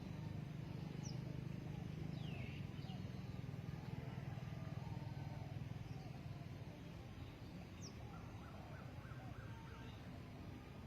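Faint wild birds calling: a few short high chirps over a low steady hum.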